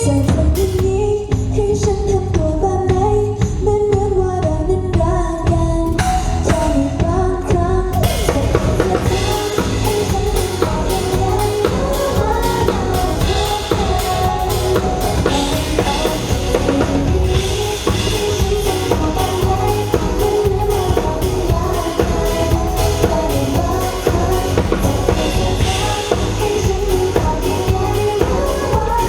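Pop song played live at a sound check: singing over a steady drum beat and bass. Cymbals come in about eight seconds in and fill out the sound.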